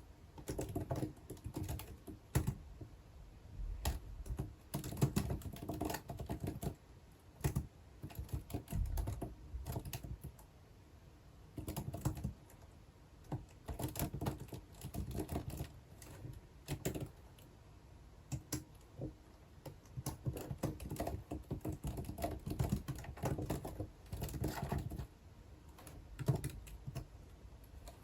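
Typing on a computer keyboard in bursts of rapid keystrokes with short pauses between.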